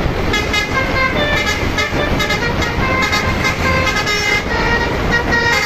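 An Indonesian bus's multi-tone 'telolet' air horn playing a quick melody of changing notes over a heavy low rumble of the bus on the road.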